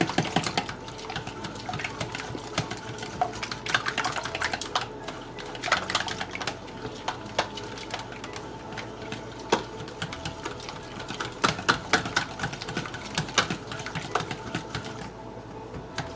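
A fork whipping egg batter in a plastic bowl: fast, uneven clicking and tapping of the fork against the bowl.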